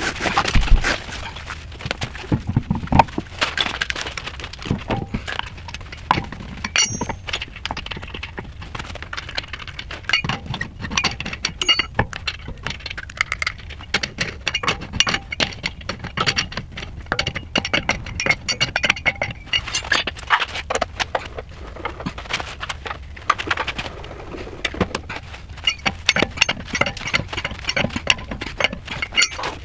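Repeated metallic clicks, clinks and light knocks of hand tools and brake parts being worked on a car's front wheel, going on throughout.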